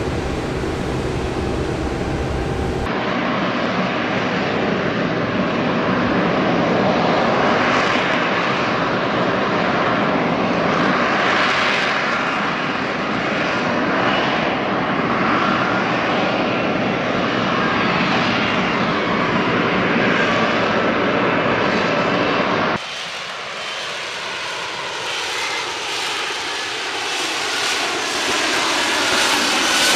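A turbofan airliner engine runs on the ground, then from about three seconds in comes the jet engine noise of a Lockheed Martin F-35B Lightning II flying slowly in its short-takeoff/vertical-landing mode, with its lift fan engaged. The level dips briefly at a change of shot near the end, and the pitch then falls.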